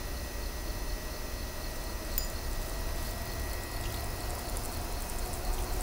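Riverside outdoor ambience: a low steady rumble with a faint high steady hum, and a single light click about two seconds in.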